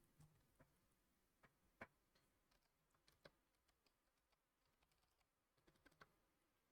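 Faint, scattered clicks of bare mechanical key switches, without keycaps, being pressed one at a time, against near silence.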